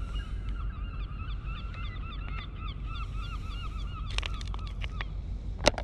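A flock of birds calling: many short, rapid, overlapping calls that die away about five seconds in. A few sharp clicks, the loudest near the end.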